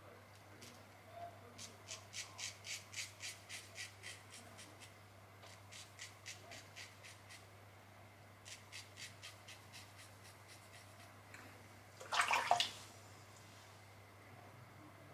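Shavette blade (Feather Artist Club SS) scraping stubble through shaving lather in quick short strokes, about five a second, in several runs: the razor's audible feedback on a cross-grain pass. About twelve seconds in there is one louder, half-second rasp.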